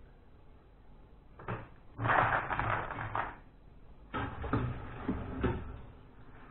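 A metal strainer knocks and scrapes in a pot of boiled tiger nuts, and the wet nuts clatter as they are tipped into a plastic bucket. There is one knock, then a loud clatter lasting just over a second, then a quick run of knocks and scraping as the strainer digs into the pot again.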